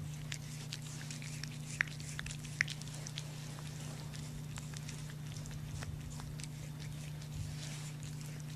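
A young deer licking and nibbling a cat's fur: a run of soft wet clicks and smacks from its tongue and lips, with two sharper clicks about two seconds in, over a steady low hum.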